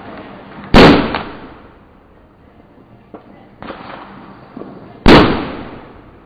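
Two loud firecracker bangs about four seconds apart, each dying away over about a second.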